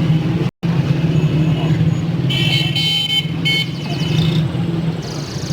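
Street traffic running steadily, with a vehicle horn honking in a few short blasts for about two seconds mid-way.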